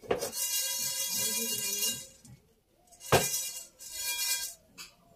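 An iron kadhai (wok) knocks down twice, and each time whole spices (cumin seeds and peppercorns) rattle and slide in it as it is shaken, while the metal pan rings.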